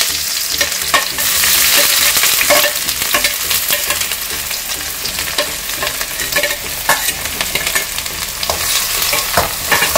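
Chopped onions frying in hot oil in a metal kadai with a loud, steady sizzle, strongest as they first hit the oil. A metal spatula stirs and scrapes against the pan, giving scattered clicks and taps.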